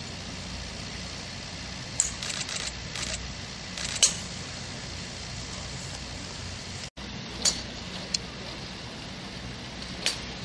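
Sharp clicks of golf balls being struck on a practice range, with a quick run of lighter clicks about two seconds in, a loud crack about four seconds in and a few more single clicks later, over a steady low background rumble.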